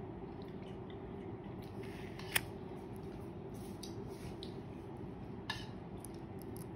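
Two small sharp clicks from the iPhone XR being handled and powered on, one about two seconds in and a softer one near the end, over a steady low room hum.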